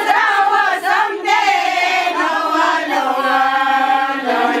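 A group of women singing together unaccompanied, several voices at once, holding long steady notes in the second half.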